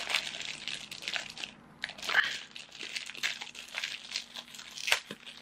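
Thin clear plastic packaging crinkling and crackling in irregular bursts as hands work at opening it.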